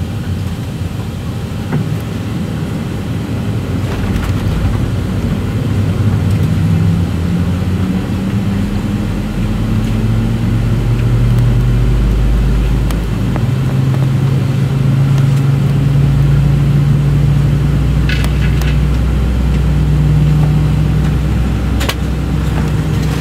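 Airbus A319 jet engine spooling up during engine start, heard inside the cabin: a low rumble with a hum that rises in pitch over several seconds and then holds steady. A few clicks near the end.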